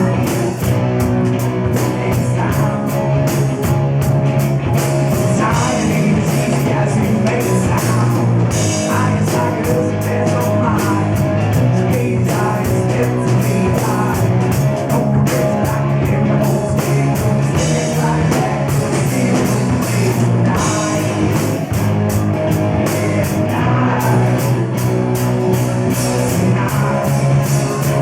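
Live rock band playing at full volume: electric guitar, bass and drums in a steady, driving groove.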